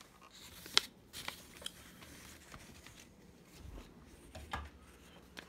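A few faint, sharp clicks and light handling noises in a quiet small room, the sharpest about a second in and another near the end.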